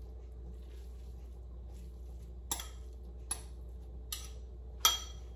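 Metal fork clinking against a ceramic bowl as tuna is scraped out of it: four light clinks about a second apart in the second half, the last the loudest, over a low steady hum.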